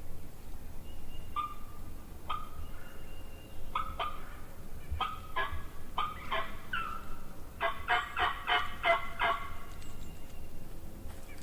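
Turkey calls: sharp, pitched notes, single and spaced at first, then coming quicker, ending in a fast run of about eight notes.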